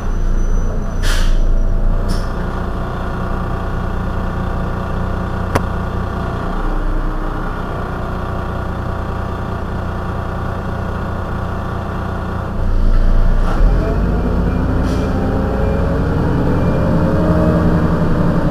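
Heuliez GX 127 city bus idling while stationary, its engine running steadily, with short hisses of compressed air about a second and two seconds in and again near thirteen and fifteen seconds in. About twelve seconds in the engine gets louder and a rising and falling whine comes in.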